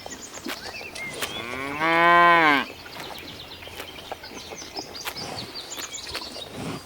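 A cow moos once, a single call of about a second that rises in pitch and then holds before stopping. Birds chirp softly around it.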